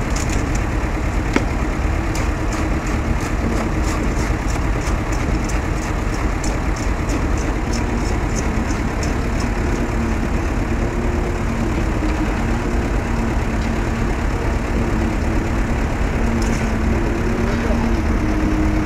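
A heavy engine running steadily, a continuous low rumble.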